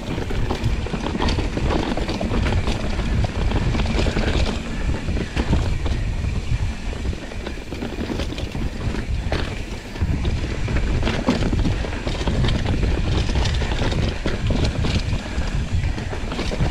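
Mountain bike being ridden over a rough trail: a steady low rumble from the tyres and wind on the microphone, with frequent knocks and rattles from the bike.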